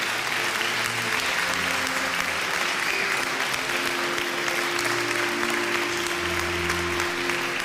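A large audience applauding steadily, with music playing underneath it in held notes over a low bass line.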